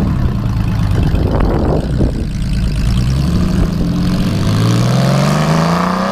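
Honda Valkyrie motorcycle's flat-six engine pulling away, then accelerating through a gear, its pitch rising steadily over the last few seconds.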